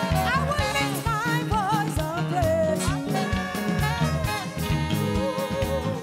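Live gospel praise band playing a steady beat on drum kit, bass guitar, keyboards and acoustic guitar, with a vocalist singing wavering, wordless runs over it.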